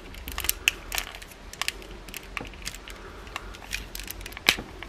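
Small clicks and rattles of a plastic Transformers Masterpiece MP-27 Ironhide figure being handled, its wheels and hinged parts folded by hand, with one sharper click about four and a half seconds in.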